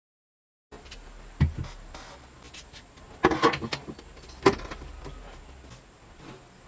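A few sharp knocks and clunks over a low steady hum: one about a second and a half in, a short cluster a little after three seconds, and a single sharp knock a second later.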